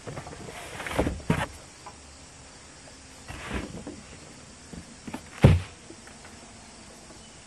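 Cardboard box being handled as a solar panel is pulled out of it: a few scrapes and knocks, a rustling swish, then a thump about five and a half seconds in.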